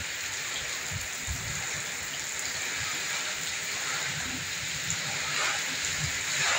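Steady heavy rain falling, with strong wind gusting in low, irregular buffets on the microphone.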